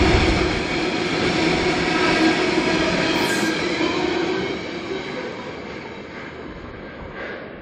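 Freight train of tank wagons rolling past close by: a steady rumble of steel wheels on the rails with a held tone over it, fading away as the last wagon passes about four seconds in.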